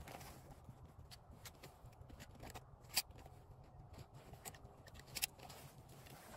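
Faint rustling with scattered small clicks close to the microphone, two sharper clicks about three seconds and five seconds in.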